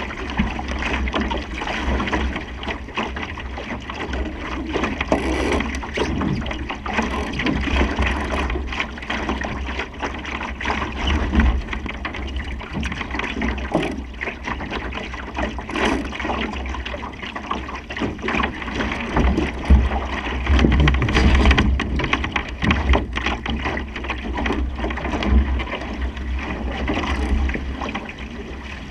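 Water rushing and splashing along the hull of a Supernova sailing dinghy under way, with wind buffeting the microphone in an uneven low rumble.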